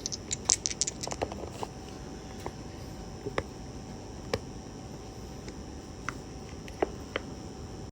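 Clicks from a tabletop press-board game being played: a quick flurry of small clicks and rattles about half a second in, then single sharp clicks every second or so.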